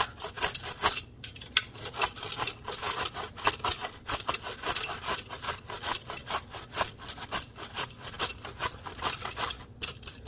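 A red apple rubbed quickly up and down a metal box grater, a steady run of short rasping strokes, several a second.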